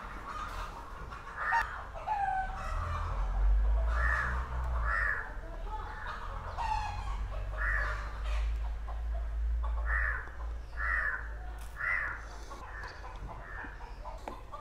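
Chickens clucking in short, separate calls every second or two, over a low steady rumble.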